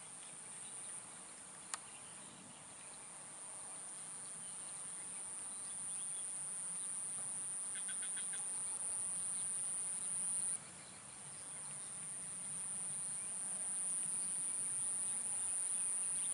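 Insect buzzing: a continuous, very high-pitched trill that grows louder, breaks off briefly about ten seconds in, then resumes.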